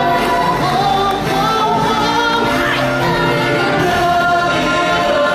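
Stage musical song: cast singing with music accompaniment, several voices together in a choir-like sound.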